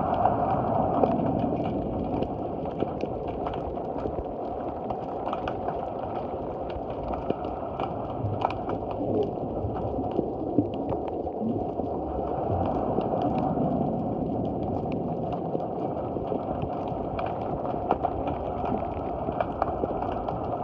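Underwater sound beneath a wharf: a steady low rush of water with many scattered sharp clicks and crackles.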